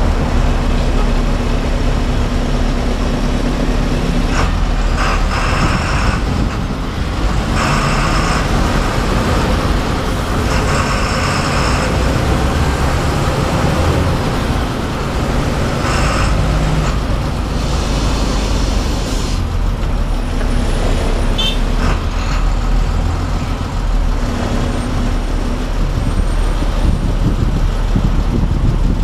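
Bus engine running and road noise heard from inside the driver's cab while the bus moves slowly in heavy traffic, with several hissing bursts of a second or two in the first two-thirds.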